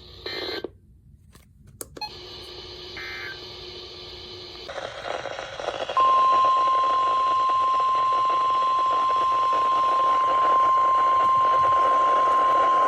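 Radio receiver hiss, then about six seconds in a single steady alert tone comes on over the static and holds. It is the NOAA Weather Radio warning alarm tone that comes before a warning message.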